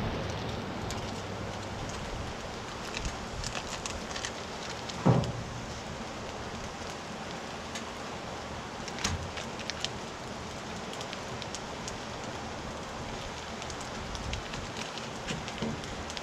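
Sockeye salmon fillets sizzling on foil on a hot flattop griddle: a steady hiss with scattered crackles. A single knock about five seconds in.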